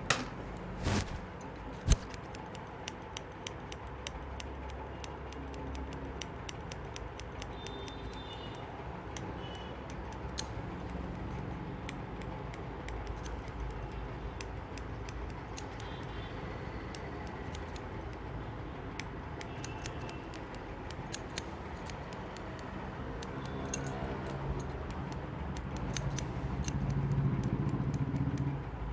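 Barber's scissors snipping hair: a quick, irregular run of small metallic clicks. A low background rumble swells for a couple of seconds near the end.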